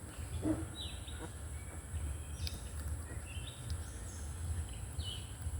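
Faint outdoor background: a steady low rumble with a few short, high chirps scattered through it.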